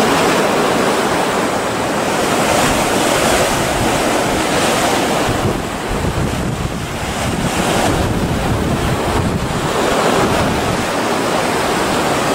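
Ocean surf and wind buffeting the microphone: a steady rush of breaking waves that swells and eases, dipping briefly about halfway through.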